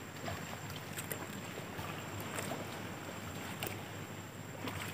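Faint water noise with scattered small clicks and light splashes from footsteps wading through shallow tidal water over rocks and mud.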